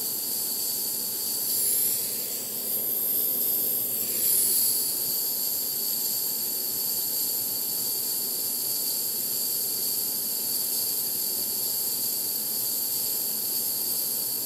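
Blowtorch flame hissing steadily, wavering and swelling briefly a couple of seconds in.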